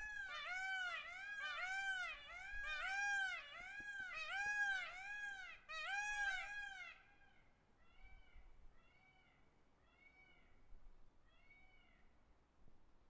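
Peacock calling: a rapid series of short, arching wailing calls, about two a second, for about seven seconds. A fainter run of the same calls follows, about one a second.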